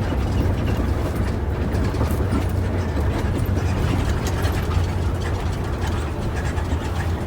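Cabin noise of a moving intercity bus: a steady low rumble of engine and road, with light irregular rattling and clicking from the cabin fittings.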